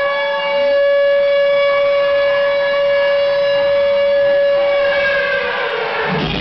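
Siren-like tone opening a dance routine's music over a club sound system: it holds one steady pitch for about five seconds, then slides down as the dance beat comes in at the very end.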